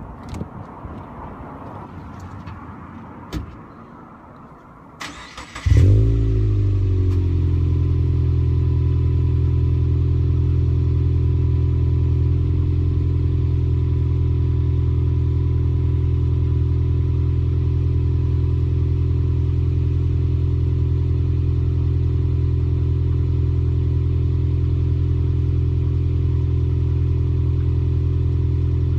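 2010 Subaru WRX STI's 2.5-litre turbocharged flat-four, fitted with HKS equal-length headers and a Kakimoto Regu 06R exhaust, being started. After a few faint clicks the starter cranks briefly, and the engine catches about six seconds in with a quick flare of revs. It then settles into a steady idle, without the uneven boxer rumble that unequal-length headers give.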